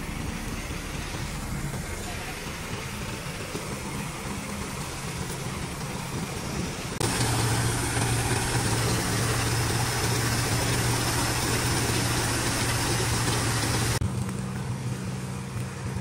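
Combine harvester running with a steady engine hum while its unloading auger pours the first tank of harvested wheat onto a tarp. About seven seconds in the sound jumps louder, with a strong hiss, and it drops back about fourteen seconds in.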